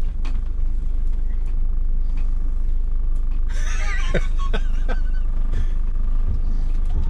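Low, steady rumble inside the cab of a Mercedes Sprinter van crawling along a rough woodland track. A few knocks come through, and a short high wavering sound is heard about halfway.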